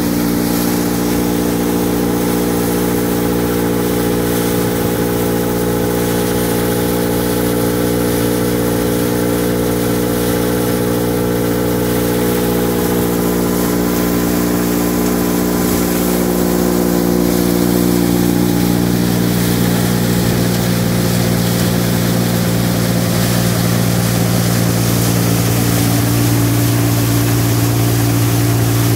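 Engine-driven crop thresher mounted on a three-wheeler, running at a steady speed with its threshing drum and blower turning as it works a crop. It gets slightly louder in the second half.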